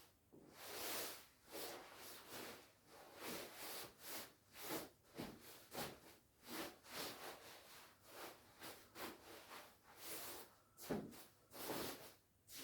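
Shiny nylon shell of a down jacket rustling and swishing as it is handled, in irregular bursts about once or twice a second.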